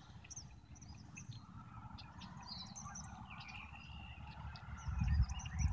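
Faint outdoor birdsong: many short, high chirps from small birds, with a longer, lower drawn-out call through the middle and a steady low rumble underneath.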